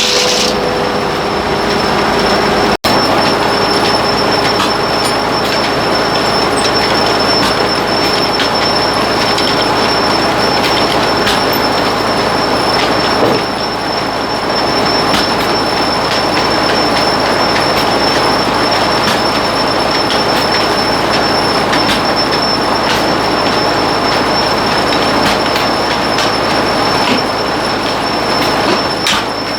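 Loud, steady noise of machinery running, with a thin high whine held throughout; the sound drops out for an instant about three seconds in.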